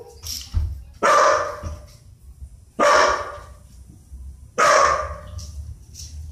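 A dog barking three times, spaced nearly two seconds apart, each bark dying away briefly after it.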